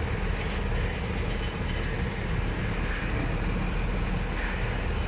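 A vehicle running: a steady low rumble of engine and road noise, with a faint constant hum.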